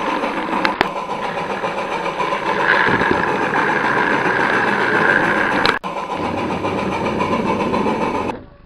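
An engine running steadily, with sharp clicks about a second in and again past the middle, then cutting off suddenly near the end.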